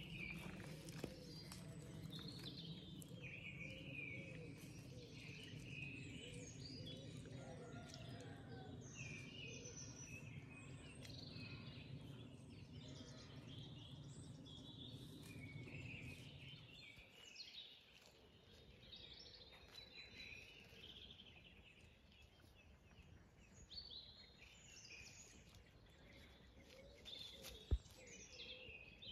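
Several wild birds singing and calling at once, faint and continuous, over a low steady rumble that stops a little past halfway. One sharp click near the end.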